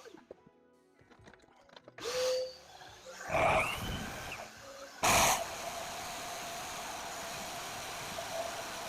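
Power tools boring a masonry hole-saw cut through a concrete block wall, with a shop vac: a few short bursts of noise, then a steady motor run from about five seconds in.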